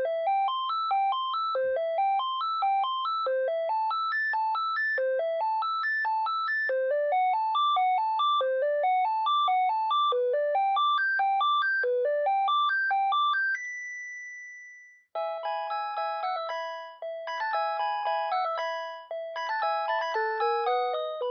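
Panasonic KX-TG5439 cordless phone playing its electronic ringtones. One melody of quick rising note runs repeats, then ends on a held high note that fades away. After a moment's silence a different ringtone melody starts, with a repeating low note under higher ones.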